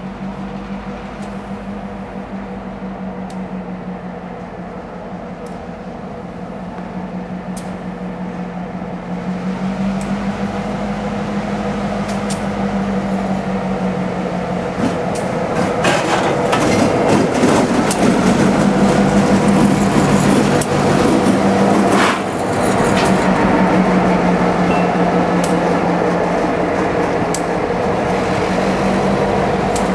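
Diesel-electric locomotive engine running at a steady note as a train draws near, growing louder over the first half. Once the train is close, sharp clicks and knocks from the wheels on the rails come in over the engine.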